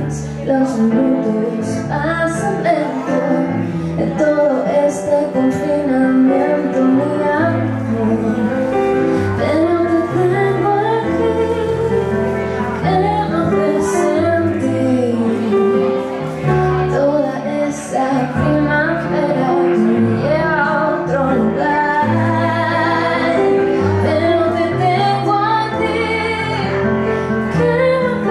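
A woman singing a slow, melodic vocal line through a microphone, accompanied by chords and bass notes on a Casio Privia digital piano.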